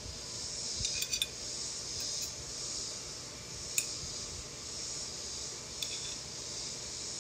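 A few light clinks of tableware, with three in quick succession about a second in and single ones near four and six seconds, over a steady high hiss.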